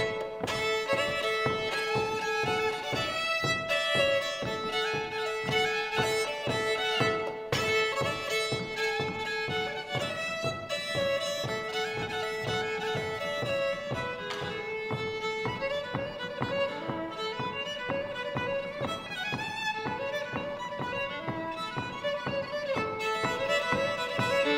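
Live fiddle playing a Danish traditional folk tune, a lively melody with some long held notes, over a steady rhythmic accompaniment.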